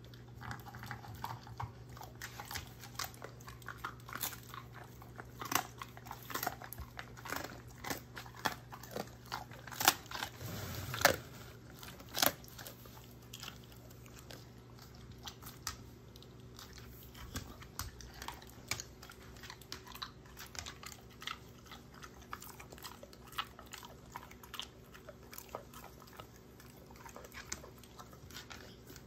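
German shorthaired pointer chewing and crunching hard dog treats, with many sharp crunches. The loudest run of crunches comes about ten to twelve seconds in, and they grow sparser and quieter after that.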